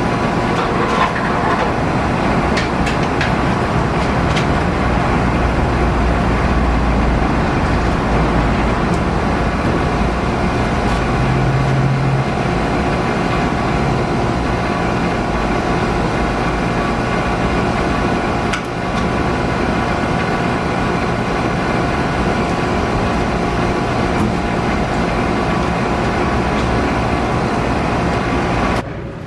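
A steady machine drone running unchanged, then cutting off abruptly near the end.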